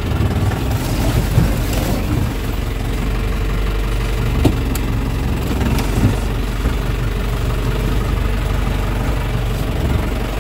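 A Mahindra jeep's engine running steadily, heard from inside the open cab as it drives on a rough muddy track. A few sharp knocks rise above it, about a second and a half, four and a half and six seconds in.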